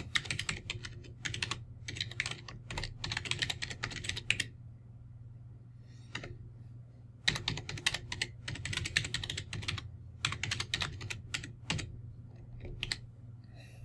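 Typing on a computer keyboard: two runs of rapid keystrokes separated by a pause of about three seconds, with a few last taps near the end.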